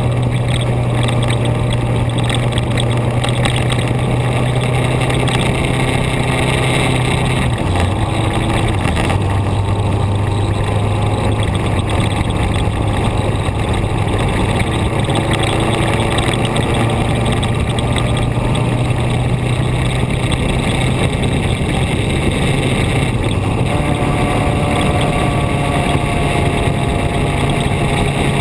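Onboard sound of a vehicle driving along a road: a steady engine hum over dense wind and road noise. The engine note drops a little about seven seconds in and rises again near the end.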